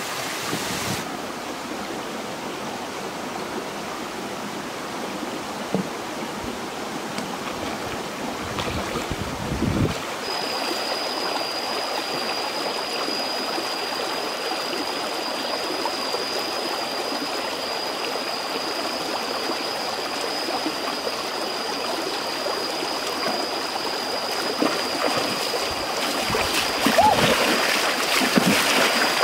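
Shallow rocky stream flowing over stones, with a steady high-pitched tone joining about ten seconds in. Near the end, louder splashing as hands thrash in the water.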